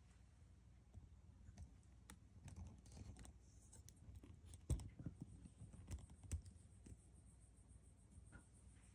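Near silence in a quiet room, broken by scattered faint clicks and taps, the sharpest a little under five seconds in and twice more around six seconds in.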